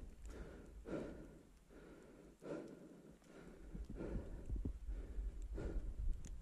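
A man breathing hard from exertion, one loud breath about every second and a half, over a low rumble on the microphone.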